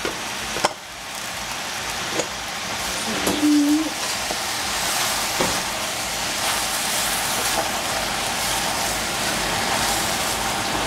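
Zucchini and yellow squash pieces sizzling in a hot stainless steel pot while being stirred with a wooden spatula, the sizzle building after about a second and then steady. A few knocks of the spatula against the pot near the start.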